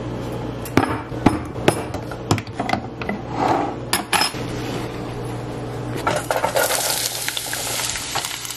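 Latches of a glass food-storage container clicking open and its lid clattering down on the countertop, then diced onion and bell pepper tipped into a saucepan of hot olive oil, starting to sizzle about six seconds in. A steady low hum runs underneath.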